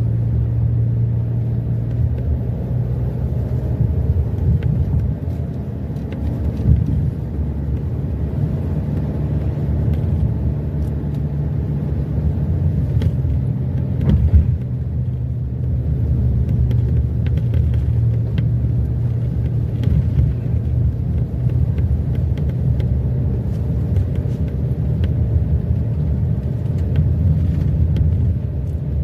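Irregular clicking from the A-pillar of a Hyundai Santa Fe, heard inside the cabin over the steady low rumble of the car driving. The clicks come more often as the car bounces on a bumpy uphill road. The dealer put the noise down to wiring inside the pillar knocking; taping it has not cured it.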